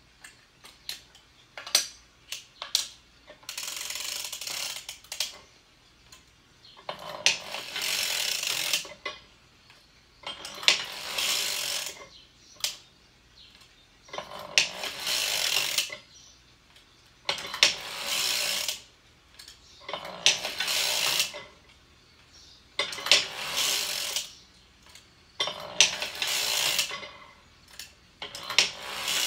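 Hand-cranked circular sock machine knitting rounds: its needles clatter over the cams in regular rasping bursts every two and a half to three seconds, with sharp mechanical clicks between them.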